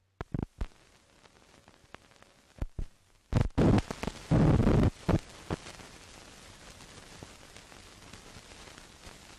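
Old optical film soundtrack starting up: scattered clicks and pops, a loud rumbling noise burst from about three and a half to five seconds in, then steady hiss.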